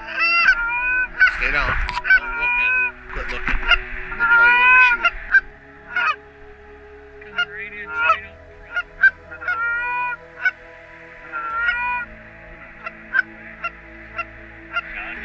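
Canada goose honks and clucks in quick runs, some two-note, with short gaps between runs. The calling thins out about twelve seconds in to scattered short clucks.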